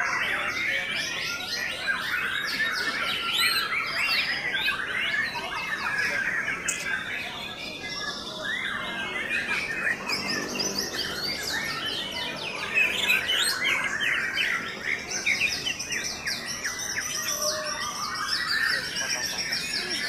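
Several white-rumped shamas (murai batu) singing at once: a dense, overlapping stream of fast whistles, chirps and trills that never pauses.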